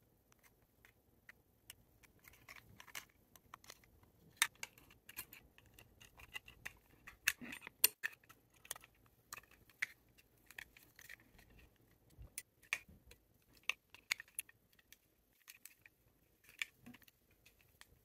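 Irregular small clicks and taps of plastic parts being handled: the opened casing, circuit board and button sheet of a Logitech Harmony remote, with a small screwdriver.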